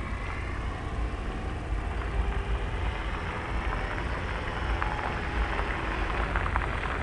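An RC airplane's brushless electric motor driving a 15-inch propeller, running steadily with rushing air noise. The owner suspects the prop needs balancing. A few faint clicks come in near the end.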